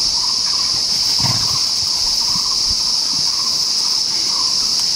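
Dense insect chorus in the surrounding forest: one loud, steady, high-pitched drone, with fainter chirps repeating lower down.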